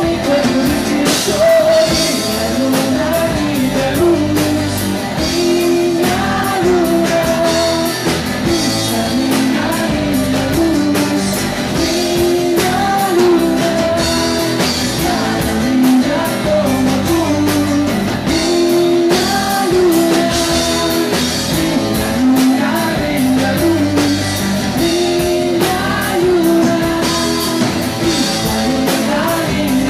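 Rock song with guitar and drum kit playing steadily, a melodic lead line weaving over the beat.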